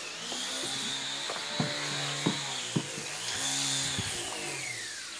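A motor running steadily, its high whine sliding down in pitch over the last couple of seconds, with a few sharp taps in the first half.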